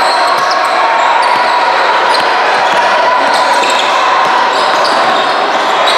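Basketball game in a gym: a ball bouncing and short high sneaker squeaks over a steady din of many voices.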